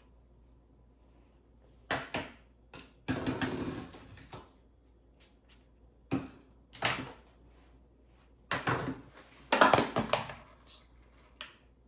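Handling noises of hair styling: a hairbrush rustling through hair and a flat iron being picked up and clamped onto a section of hair, heard as a string of short rustles and knocks starting about two seconds in.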